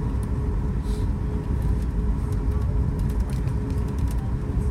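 Cabin noise of a Boeing 737 MAX 8 taxiing: a steady low rumble with a faint even hum from its CFM LEAP-1B engines at idle, and light scattered rattles.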